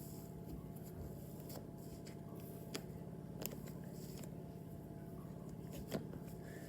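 Slime being squished and kneaded by hand, with a few sharp clicks and pops, over a steady low hum.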